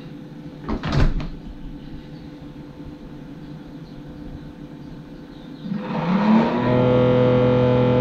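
Samsung refrigerator's evaporator fan coming on about six seconds in: a rising whir that settles into a loud, steady droning hum. It is a sign of the fan freezing up with ice, the icing defect this model is known for. Before it, the fridge hums quietly, with a brief clatter about a second in.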